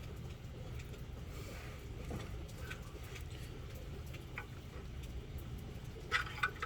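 Steady low background rumble with a few light clicks, a short cluster of them about six seconds in, as the oil drain plug is handled and put back in.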